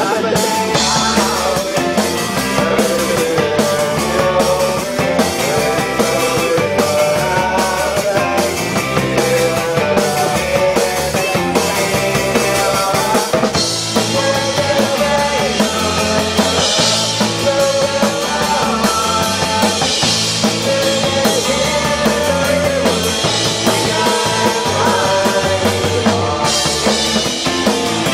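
Live rock band playing loud: electric guitars, bass guitar and drum kit, with the drum pattern changing about halfway through.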